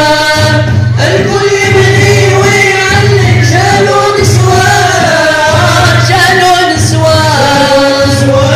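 Male inshad chorus singing together in drawn-out, bending notes over a steady beat of hand drums.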